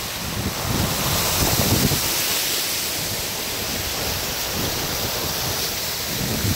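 Rushing, splashing water: the Weeping Wall's waterfall pouring down the rock onto the road and a Onewheel's tyre spraying through the running water. Wind buffets the microphone in low gusts, about a second and a half in and again near the end.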